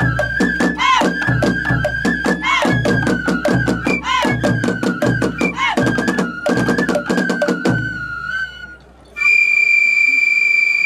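Japanese festival hayashi music: a bamboo flute playing a bending, ornamented melody over taiko drum strokes, stopping about nine seconds in. Right after, a steady shrill high tone starts and holds without a break.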